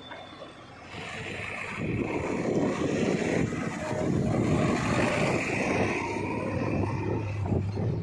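JCB 3DX backhoe loader's diesel engine running as the machine drives along a road, its tyres rolling on the tarmac. The sound gets louder about a second in and again near two seconds, and a steady low hum comes in near the end.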